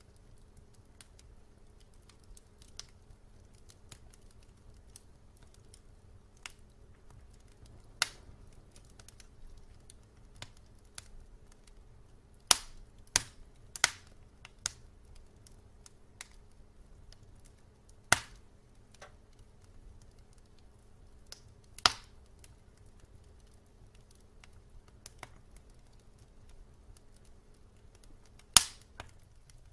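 Wood fire crackling in a fireplace: irregular sharp pops and snaps, a few loud ones bunched around the middle and one near the end, over a faint low hum that cuts out near the end.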